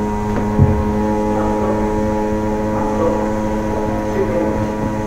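Steady electrical hum inside a Shin-Keisei 8900 series commuter train car with no change in pitch, from the car's onboard equipment and air conditioning, with a few faint knocks.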